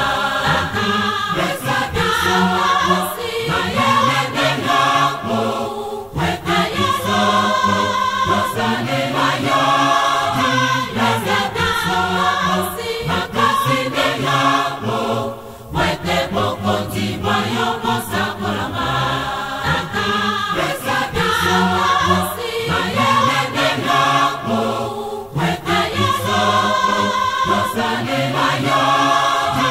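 A choir singing a gospel song over a musical backing, in repeated phrases.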